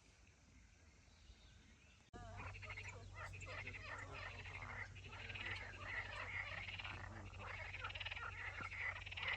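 A chorus of frogs croaking, many fast rattling calls overlapping. It starts abruptly about two seconds in, after a quiet opening.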